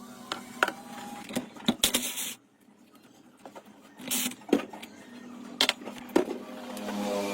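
Work on metal parts: sharp clicks and knocks, two short bursts of scraping or hissing, and a steady low mechanical hum near the start and again near the end.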